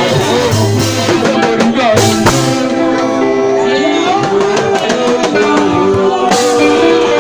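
Loud live band music with a singer at a microphone, backed by drums.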